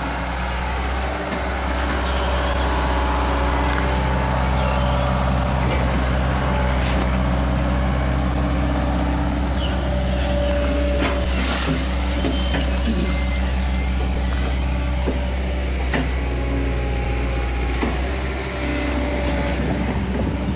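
Hitachi EX200 long-arm excavator's diesel engine running steadily close by, a low, even hum that grows a little louder about two seconds in.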